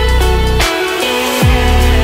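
Electronic dance music with heavy bass: a deep bass note drops sharply in pitch and then holds, twice, about a second and a half apart.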